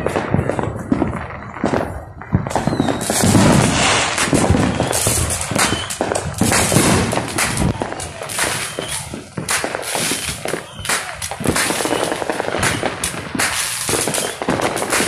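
Neighbourhood fireworks and firecrackers going off, a dense, irregular run of bangs and crackling that thickens about three seconds in.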